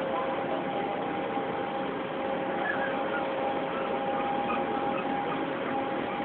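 Steady running noise of a moving vehicle heard from inside, with a faint steady whine at two pitches.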